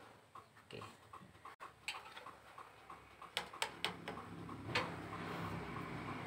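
Turn-signal flasher of a Toyota Kijang Grand Extra ticking fast and evenly, about five clicks a second, while the indicator is on. A few sharp metallic clicks of a screwdriver working at the lamp socket come a little past three seconds in and near five seconds, and a steady low hum comes in near the end.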